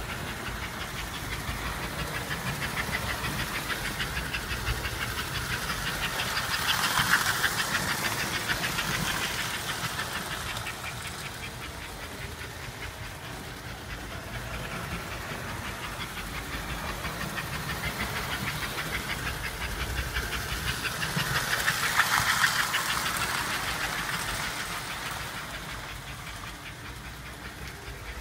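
American Flyer 293 S-gauge toy steam locomotive running laps around a layout loop: a steady motor hum and wheel clatter on the track. It swells as the engine passes close, about a quarter of the way in and again near three quarters, then fades as it moves away. The rear tender pickup shoe has been removed, and the engine runs a little better for it.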